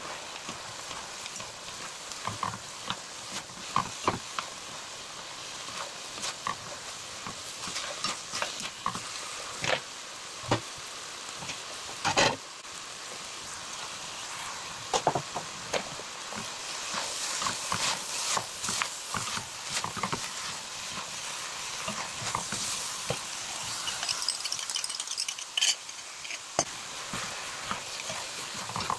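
Stir-fried beef noodles sizzling in a frying pan while a wooden spatula and chopsticks toss them, with frequent light clicks and scrapes of the utensils against the pan and one louder knock about twelve seconds in. The sizzle grows brighter in the second half, after shredded cabbage goes in.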